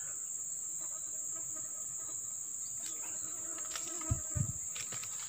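Steady high-pitched buzzing of insects in the riverside vegetation, with two brief low thumps a little after four seconds in.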